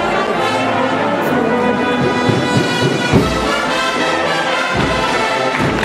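Brass band playing a processional march, with several brass instruments sounding together over occasional low drum strokes.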